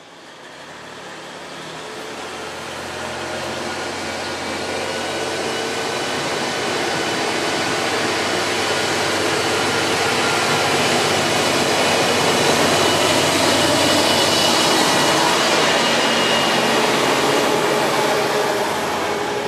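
JR Shikoku KiHa 47 diesel railcar approaching and running in close. The diesel and the wheels on the rails grow steadily louder for about twelve seconds, then hold, with a few steady whining tones over the rumble.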